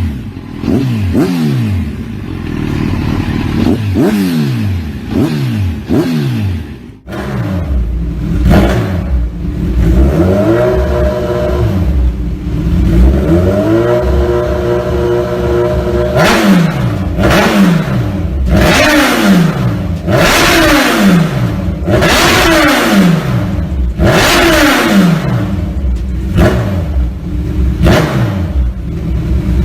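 A modified Kawasaki Z1000's inline-four engine revved in quick repeated blips, each rise in pitch falling straight back to idle. A short break comes about seven seconds in, followed by a longer held rev and then more fast blips.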